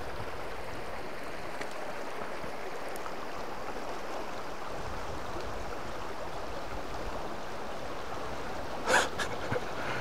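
Steady rush of a shallow river flowing over stones, with a brief close sound about nine seconds in.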